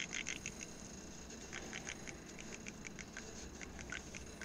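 Air and hydraulic fluid sputtering from the loosened bleeder screw on top of a two-post lift's hydraulic cylinder: a faint, irregular crackle of tiny clicks and pops. This is the sign of air still being bled out of the newly filled cylinder.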